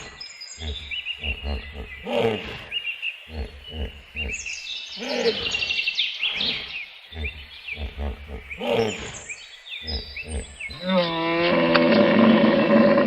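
Hippopotamus calling: a series of deep grunting pulses, then a long drawn-out honking call starting near the end, with birds chirping in the background.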